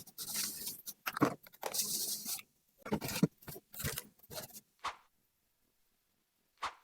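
Packaging being handled and torn open: irregular scraping, tearing and crinkling that stops about five seconds in, then one more short scrape near the end.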